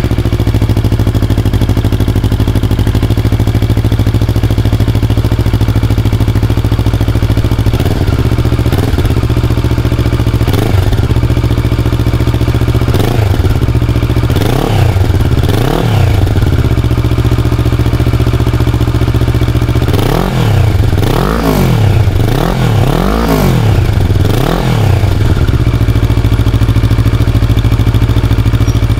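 Kawasaki Versys 650 parallel-twin engine breathing through a Mivv Suono slip-on exhaust: idling steadily, then blipped on the throttle again and again, the pitch rising and falling each time. A few blips come spread out, then a quick run of them near the end, before it settles back to idle.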